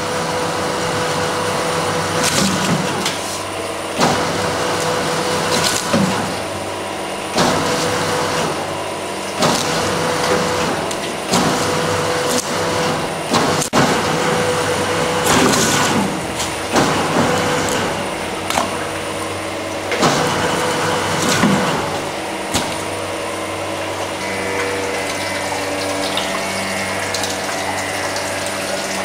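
Cretel 460 fish skinning machine running with a steady motor hum. A short, louder noise comes every one and a half to two seconds as each dogfish piece is fed through and skinned. The noises stop a little over three-quarters of the way through, leaving the machine running on its own.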